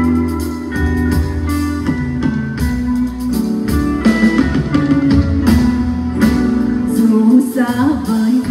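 Live band music with guitar and drums, and a singer's voice carrying the melody from about halfway through.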